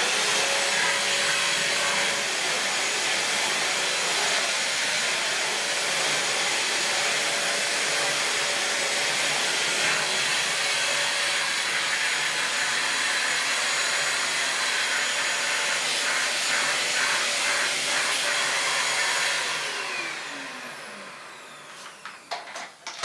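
Tinton handheld electric vacuum cleaner running, a steady motor whine over the rush of air. About 19 seconds in it is switched off and winds down with a falling whine, followed by a couple of short clicks near the end.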